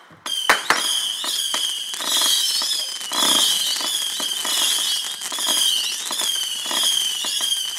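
A 300-shot saturn missile battery firing in rapid succession, starting a moment in. Many small rockets whistle at once, their pitches sliding, over a constant stream of sharp pops.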